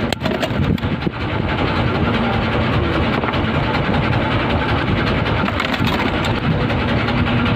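Steady drone of a boat's engine running. A few sharp clicks and knocks come in the first second or so.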